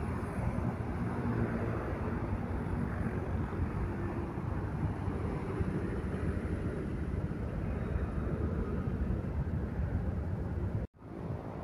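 Diesel engine of a light cargo truck passing close by and pulling away, over steady road-traffic noise with motorcycles. The sound breaks off abruptly near the end.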